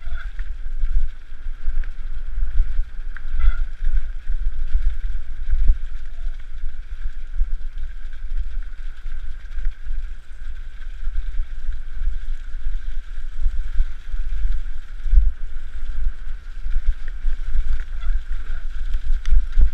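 Wind buffeting and bumping on a helmet-mounted camera microphone during a fast mountain bike descent over a rough dirt trail, heard as a heavy, uneven rumble. A steady high whine runs underneath.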